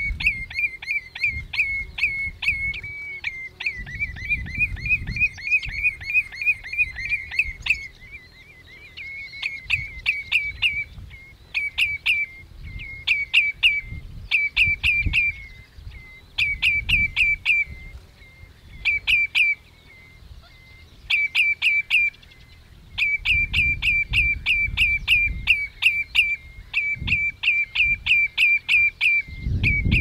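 Common redshank calling: a fast, unbroken run of high, ringing notes for the first several seconds, then short bursts of three to six notes repeated every second or two.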